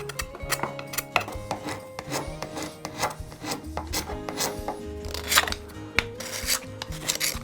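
Repeated rasping, scrubbing strokes on the hand plane's metal parts, with background music.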